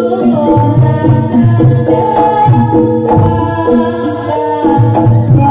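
Live jaranan gamelan music: kendang hand drums beat a steady rhythm of low strokes under a held melodic line and sharp metal strikes.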